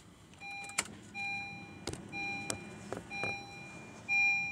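Honda HR-V dashboard warning chime beeping about once a second, each beep a clear tone of about half a second, the engine switched off with the ignition still on. Several sharp clicks fall between the beeps.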